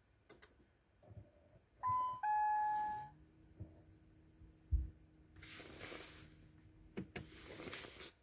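A computer's two-note notification chime about two seconds in, the second note lower and longer, as the 'programmed successfully' message comes up: the module write has finished. A faint low hum follows, with a dull thump and some rustling near the end.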